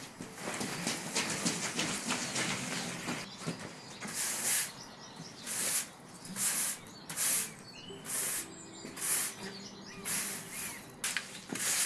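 Push broom sweeping wet stone flagstones: short hissy swishes at about one a second, after a few seconds of scraping and knocking as a planter pot is shifted.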